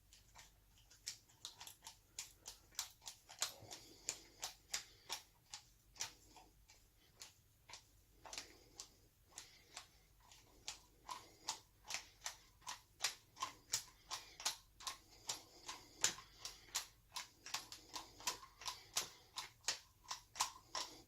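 A screwdriver winding the volume (slow-running) screw into an SU HD8 carburettor body. It makes repeated light clicks and ticks, roughly two a second, as the blade turns and is reset in the screw slot against the stiff new O-ring.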